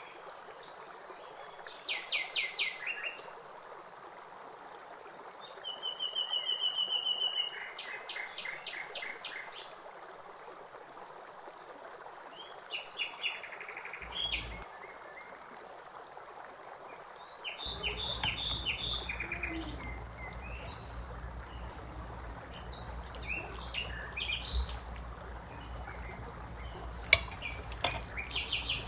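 Small birds chirping, in short repeated trills, over a steady hiss. A low hum comes in about two-thirds of the way through, and a single sharp click sounds near the end.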